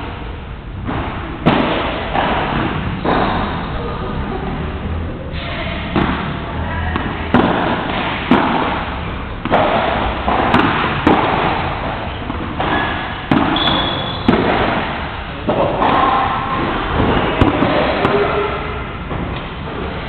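Padel rally: a padel ball struck back and forth with solid paddles and bouncing on the court, a sharp hit about every second, irregularly spaced.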